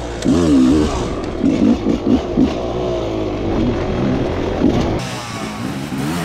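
Dirt bike engines revving hard, their pitch repeatedly rising and falling.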